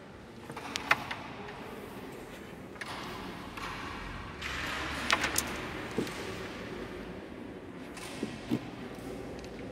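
Carrom striker flicked across a carrom board, clacking against the coins: a few sharp clicks about a second in, a louder cluster of clacks around five seconds in, then two more knocks a little after eight seconds.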